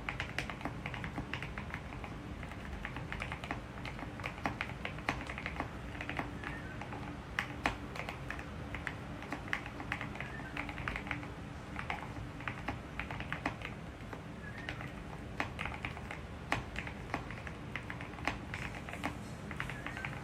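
Typing on a GMK67 65% mechanical keyboard: a run of irregular key clacks, several a second, with no pauses.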